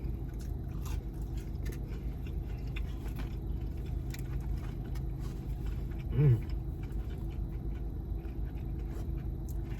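A person chewing a Wendy's chicken nugget, with faint scattered mouth clicks, over a steady low hum. A short voiced sound about six seconds in.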